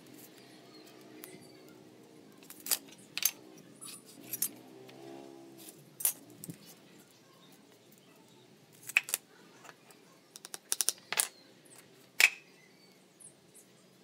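Scattered sharp clicks and taps of a tape measure and pen being handled against a pine board on a concrete floor, with a quick run of clicks near the end.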